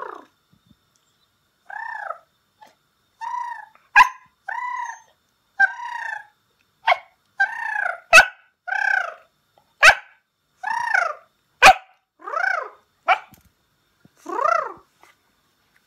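A Pembroke Welsh corgi gives a run of about a dozen short whining barks, each rising and then falling in pitch. Four very short sharp cracks among them are the loudest sounds.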